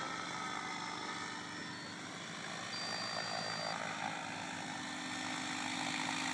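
SAB Goblin 700 electric RC helicopter flying low and coming down to land: a steady hum from the rotor and motor with a rushing blade noise that grows louder as it nears the ground.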